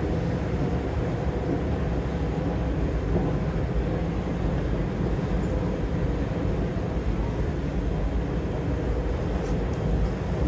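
Subway-station escalator running, a steady low rumble and hum of its machinery and moving steps.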